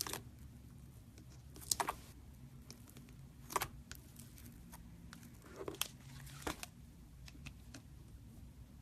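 Handling noises: about five short crinkling, tearing sounds, spaced a second or two apart, over a low steady hum.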